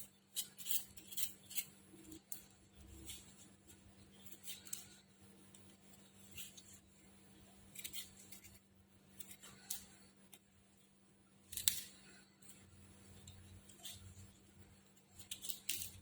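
Vegetable being peeled: short, faint scraping strokes in bursts of several a second, with pauses between them.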